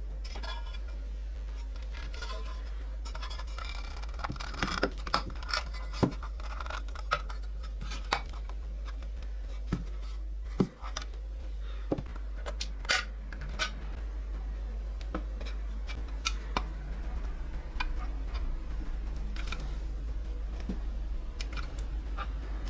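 Irregular light clicks, taps and scraping from hand work on small parts, some clicks sharp and loud, over a steady low hum.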